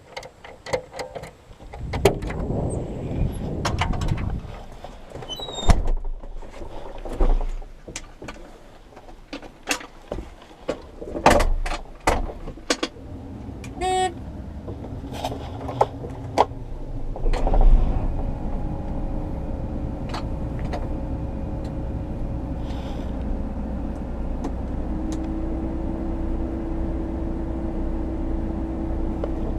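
Irregular knocks and clatter with a short run of beeps, then, a little past halfway, an engine starts and runs steadily, its pitch stepping up near the end.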